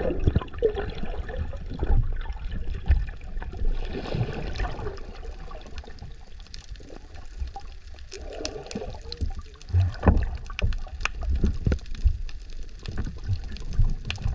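Underwater sound picked up by a submerged camera: muffled gurgling water and bubbles, with low thumps and scattered sharp clicks.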